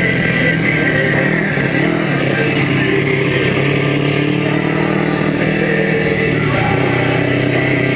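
Mini buggy's Kawasaki Ninja 250 motorcycle engine pulling steadily at cruising speed, its pitch dipping about six and a half seconds in and then climbing again. Tyre noise from the dirt road and wind run underneath.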